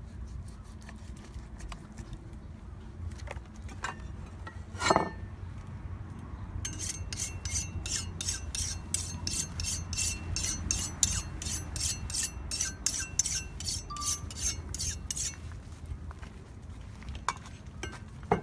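Steel knife blade scraped against a block in quick, even strokes, about three a second, from about seven to fifteen seconds in, with a single knock about five seconds in.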